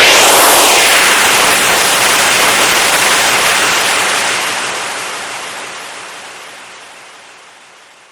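Compressed air released in a loud, even hiss that holds steady for about four seconds, then slowly fades away.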